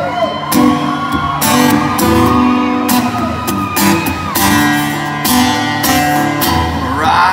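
Acoustic guitars strummed live through a PA, playing chords in an instrumental gap of a country song.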